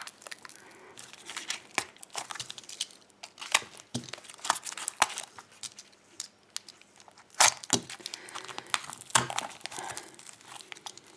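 Packaging being crinkled and torn by hand as a small wrapped package is opened, an irregular run of crackles and rustles with a few louder rips.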